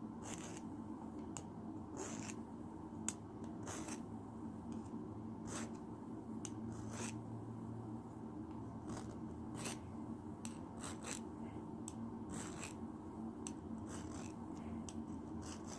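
Hand file scraping the metal points of throwing spikes to sharpen them, in short strokes about once a second with uneven spacing.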